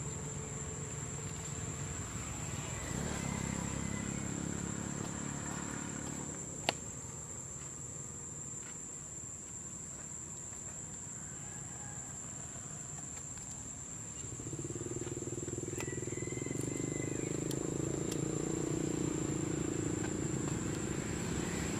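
Outdoor ambience: a steady high-pitched insect drone over a low rumble that swells briefly and then grows louder in the second half, with one sharp click about seven seconds in.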